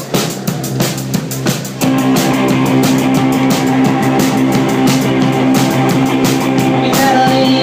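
Live rock band playing on stage with electric bass guitar. A few sharp hits come first, then about two seconds in the full band comes in, loud and steady.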